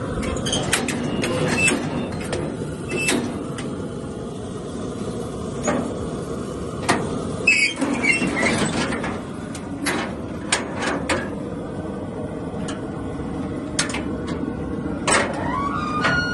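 Scattered knocks and clanks of steel livestock gates and panels over a steady background rumble, with a rising tone near the end.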